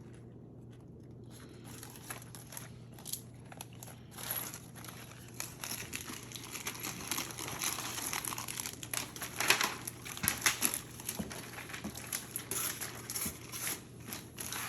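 Plastic wrapping crinkling and tearing in irregular handling noises as a toy's surprise eggs are unwrapped. It is quieter for the first second or so and busiest in the second half.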